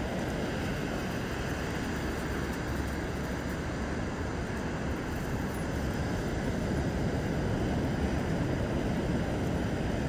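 Surf of the Cantabrian Sea breaking on a sandy beach: a steady rush of waves, swelling a little in the second half.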